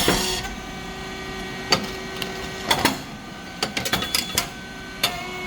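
Rice cake popping machine running: a steady hum under sharp mechanical clicks and knocks, one a little under two seconds in, another near three seconds, a quick run of clicks around four seconds, and one more near the end.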